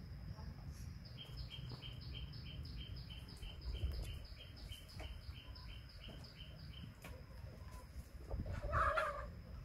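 Insect chirping in the background as a steady train of high pulses, about four a second, over a low rumble. A short, louder call comes near the end.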